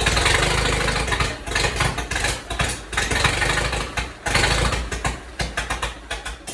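Massey-Harris Pacemaker tractor engine running unevenly on its first start after restoration, just off choke, with an irregular, stumbling firing beat that fades toward the end.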